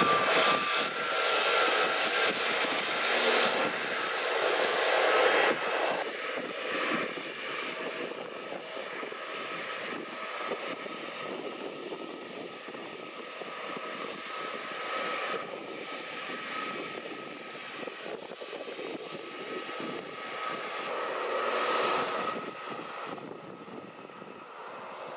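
Airbus A320neo's Pratt & Whitney PW1100G geared turbofans running at taxi power as the jet rolls past: a steady jet whine with a high tone. It is loudest at first, drops off after about six seconds, and swells again briefly near the end as the aircraft turns away.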